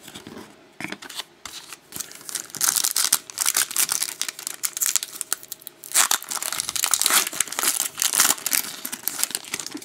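Foil wrapper of a hockey card pack being crinkled and torn open by hand. There are two louder spells of crackling, about a quarter of the way in and again past the middle.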